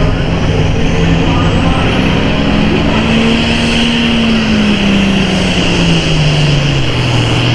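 Super farm pulling tractor's turbocharged diesel engine running loud and hard under load, its pitch climbing and then sagging lower, with a faint high whine rising over it.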